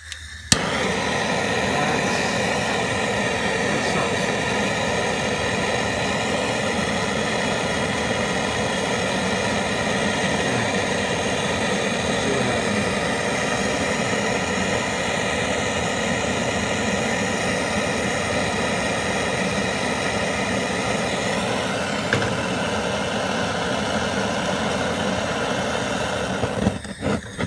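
BernzOMatic trigger-start plumbing torch clicking as it lights, then its flame hissing steadily for over twenty seconds before it is shut off near the end.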